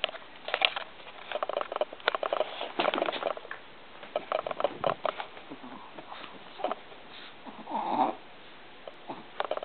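Two Chihuahuas romping: irregular scuffling and pattering, broken by short dog vocal noises, with a longer throaty one about eight seconds in.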